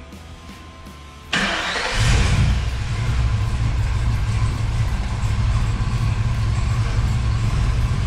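Chevrolet 7.4 L Vortec big-block V8 (L29) starts about a second in, then keeps running with a heavy low rumble. It runs, but barely.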